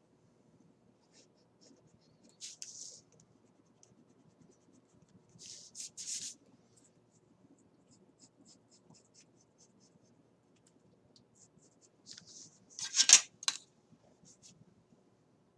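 Drawing strokes on paper, scratching in a few short runs with light ticks between them; the loudest run comes near the end.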